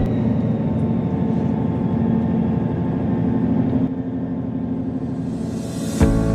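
Diesel train engine running steadily with a low, even rumble. Near the end a rising whoosh builds and cuts off abruptly.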